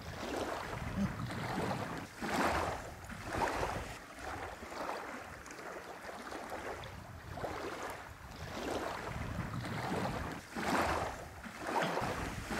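Small waves lapping at a sandy lake shore in soft, irregular washes every second or two, with a low wind rumble on the microphone.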